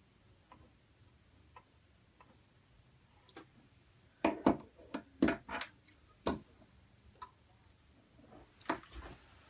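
Sharp clicks and knocks of hand tools and fingers against the metal chassis of a CB radio, about half a dozen in quick succession around five seconds in and one more near the end, as a transistor is worked into place.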